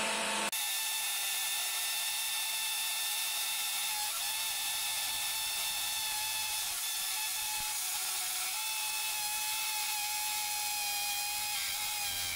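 Parkside Performance PSBSAP 20-Li A1 brushless cordless hammer drill boring a 10 mm hole into brick with a masonry bit. About half a second in, the sound jumps higher as the recording is sped up four times, turning the drilling into a high, fast whine and rattle.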